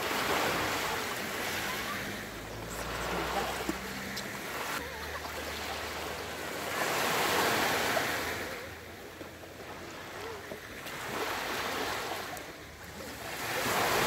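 Small sea waves breaking and washing up a sandy shore, the surf swelling and fading every few seconds.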